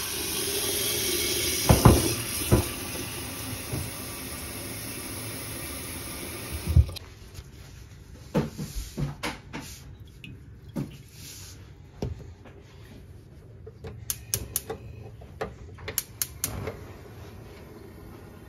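Tap water running into a stainless steel pot of eggs, with a few clunks of the pot, stopping about seven seconds in. After that come scattered knocks as the pot is set on the gas hob, and near the end a run of sharp clicks as the burner is lit.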